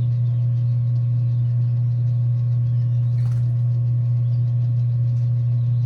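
A steady low hum, with a faint brief rustle about three seconds in.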